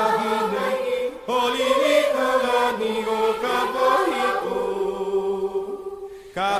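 Background music: a song with chant-like sung vocals.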